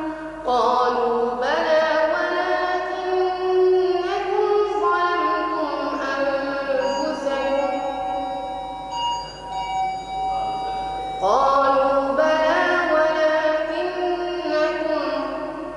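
A boy reciting the Quran in melodic tajwid style, holding long drawn-out notes that rise and fall in pitch. The voice grows quieter in the middle and swells again about two thirds of the way through.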